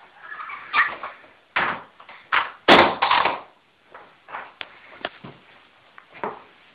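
A series of irregular knocks and bumps, about a dozen in all, the loudest just under three seconds in.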